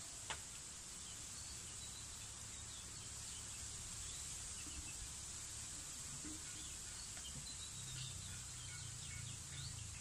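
Outdoor rural ambience: a steady high hiss over a low rumble, with faint short bird chirps scattered through the second half. A single sharp click comes about a third of a second in.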